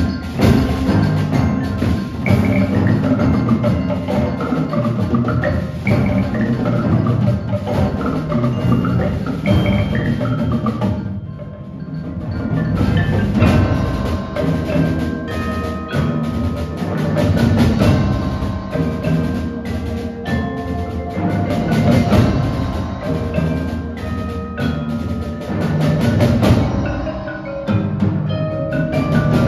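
Percussion ensemble playing a piece written for unpitched percussion: dense drumming with sharp clicks and ringing tones over it. It thins out briefly about eleven seconds in, then builds again.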